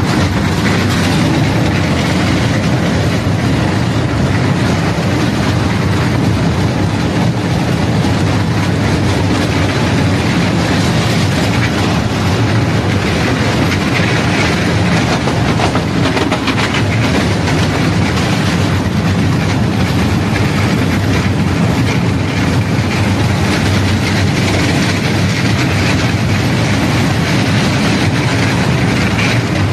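Miniature ride-on Shinkansen train running along its narrow-gauge track, a steady rattle of wheels on the rails.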